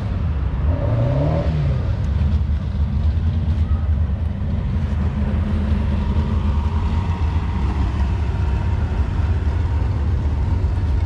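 Vehicle engines running with a steady low rumble, without a clear rev-up.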